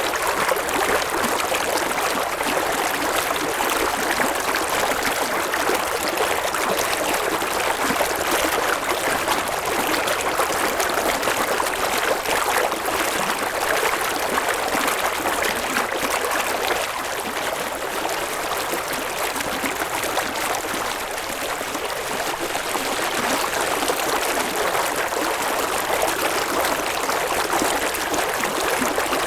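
River water flowing over rocks: a steady, even rush with a trickling, babbling texture.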